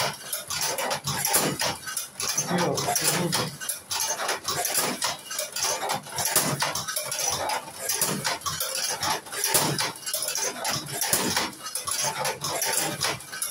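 Cigarette-rolling machine clacking as it fills cigarettes with tobacco: a dense, irregular run of metallic clicks and clatter.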